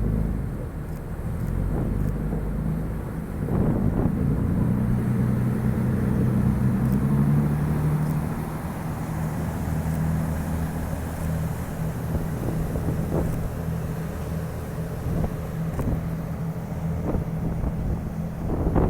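A boat's engine running with a steady low hum that swells somewhat about four seconds in, over wind rumbling on the microphone.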